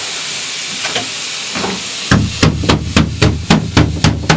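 A steady hiss, then, about two seconds in, rapid, regular knocking or banging begins, about four blows a second.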